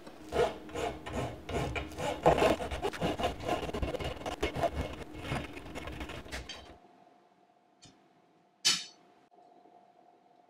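Hand file rasping across the end of a metal bar clamped in a vise, in quick back-and-forth strokes, rounding the end so it no longer binds. The filing stops abruptly about seven seconds in, and a single sharp metal click follows.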